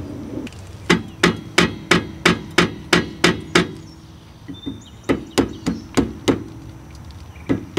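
Hammer blows on metal, each with a brief ring: a run of about nine strikes at roughly three a second, a short pause, five more, and another run starting near the end. This is typical of a rust-seized brake rotor being knocked loose.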